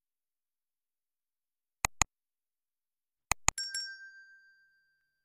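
Subscribe-button animation sound effects: a quick double mouse click, another double click about a second and a half later, then a small bell ding that rings on and fades away.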